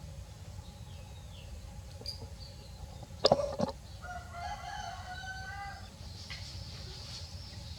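Two sharp knocks in quick succession, then a rooster crowing once in a single long call of under two seconds, over a steady low rumble.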